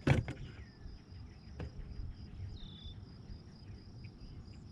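Steady high-pitched chirring of insects, with a sharp knock right at the start and a lighter click about a second and a half in.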